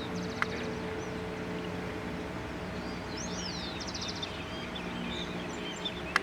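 Birds chirping and twittering in short rising and falling calls over a steady low hum of outdoor background noise, with a couple of sharp clicks, the loudest one near the end.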